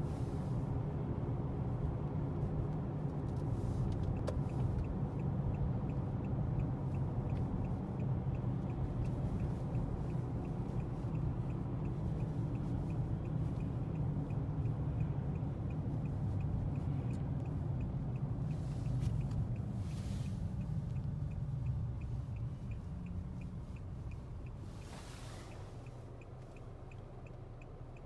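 Engine and tyre rumble inside a moving car, fading as the car slows to a stop near the end. A turn-signal indicator clicks steadily from about four seconds in, and a couple of brief whooshes come from passing traffic.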